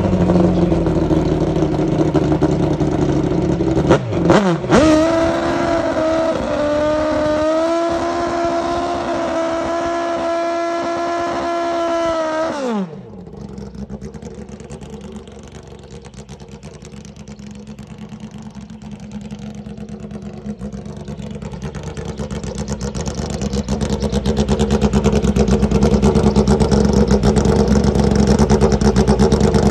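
Inline-four engine of a Suzuki Hayabusa-based Pro Stock drag motorcycle running. It is blipped about four seconds in, then held at a steady raised speed, and the pitch drops away as it shuts off about halfway through. After that a rougher engine sound grows louder over the last several seconds.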